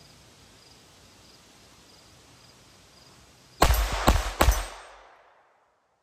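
Three pistol shots from a Glock 44 .22 LR firing 40-grain high-velocity Aguila rounds, about half a second apart, each with a short echoing tail.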